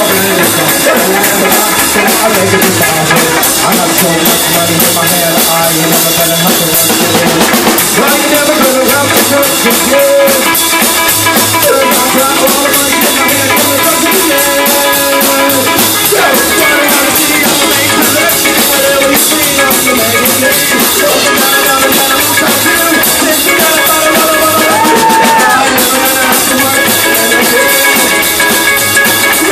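A rockabilly trio playing live: electric guitar over a driving drum kit and upright bass, an instrumental stretch with no singing. The music is loud and steady.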